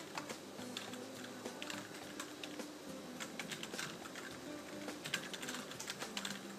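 Typing on a computer keyboard: a run of quick, irregular keystroke clicks.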